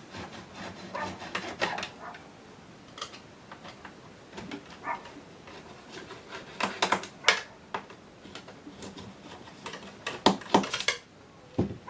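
Long hand screwdriver working screws out of a metal avionics rack: irregular metal clicks and scrapes, with louder clusters about seven and ten seconds in.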